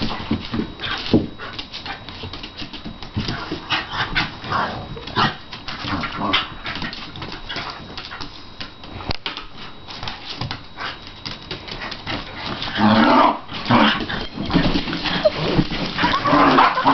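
A West Highland white terrier and a Scottish terrier play-fighting, growling with many short scuffles; the growling gets louder from about twelve and a half seconds in.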